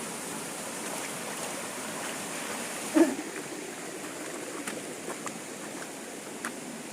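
Steady rush of flowing water. A short voice sound comes about three seconds in, and a few faint clicks follow.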